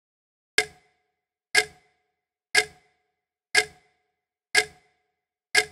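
A clock ticking sound effect: six crisp ticks, one a second, each with a short ringing tone, marking the time allowed to write the answer.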